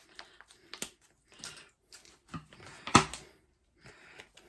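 Scissors snipping and plastic toy packaging crinkling as a packet is cut and handled, a run of irregular clicks and rustles with one sharp, louder snap about three seconds in.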